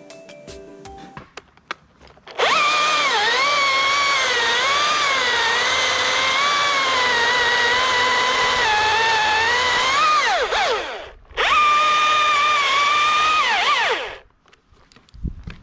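Chainsaw cutting in two runs: a loud, high whine starts about two seconds in, its pitch sagging and recovering as it works, then falls away and stops dead for a moment. A second, shorter run follows and winds down about a second before the end, with no idling in between.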